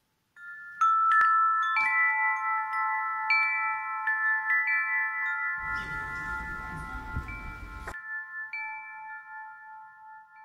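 Metal chimes ringing: several bell-like tones at different pitches, struck at irregular moments and left to ring, the whole fading out near the end. Past the middle, a stretch of hiss and rumble lasts about two seconds and cuts off sharply.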